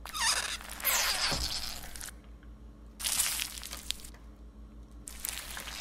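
Dry crunching as a hand presses down hard on a raw pizza layered with nacho cheese Doritos and shredded cheese, crushing the tortilla chips, in three spells.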